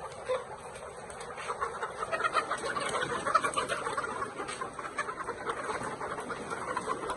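A flock of chickens clucking together, a dense, overlapping chatter of many birds that grows louder about two seconds in.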